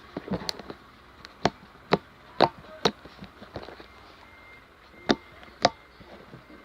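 Slime being squeezed and stretched by hand, giving a string of sharp pops and clicks at uneven intervals, about eight in all.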